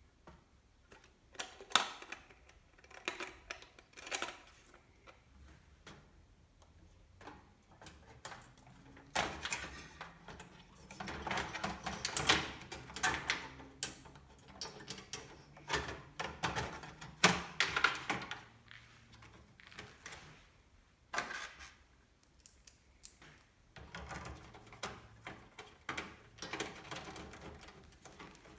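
Handling noise of parts and packaging: irregular clicks, knocks and rustling, busiest in the middle.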